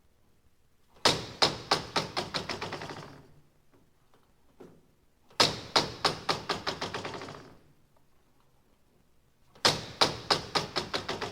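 An object falling and bouncing to rest, heard three times: each time a sharp first hit is followed by a run of quicker, quieter knocks that die away over about two seconds.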